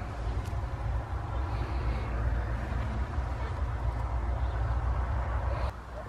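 Small paint roller rolling wet paint over a sheet-metal cabinet panel, under a steady low rumble. Both drop suddenly near the end.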